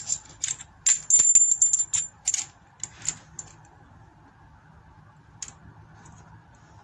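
Small metal RC wheel-rim parts clinking and rattling as they are handled: a quick run of clicks for about three seconds, then one more click a couple of seconds later.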